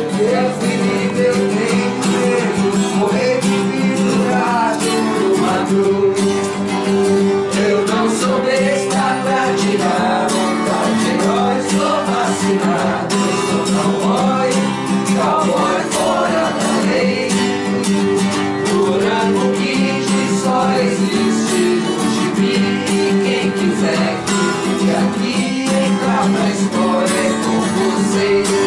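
Acoustic guitar strummed steadily in rhythm, chords ringing, with a voice singing along.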